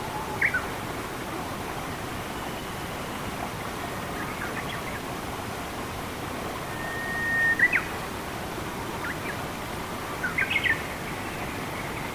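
Birds chirping and whistling over a steady rush of flowing water: a chirp about half a second in, a long whistled note ending in a sharp chirp around the middle, and a quick run of chirps near the end.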